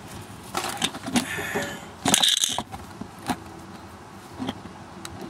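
Metal clattering and scraping as tools and parts are handled, with a loud rattling scrape about two seconds in and a few lighter knocks after.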